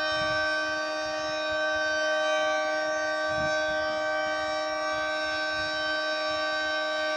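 Federal Signal 3T22 three-tone outdoor warning siren sounding a high-pitched, steady chord with no rise or fall in pitch, as in the Alert signal, its level swelling a little as the rotating head turns.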